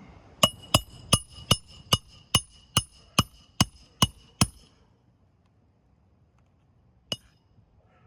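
A hammer driving a roofing nail into shingles: about eleven quick, ringing blows at a steady pace, then a single blow after a pause of a couple of seconds.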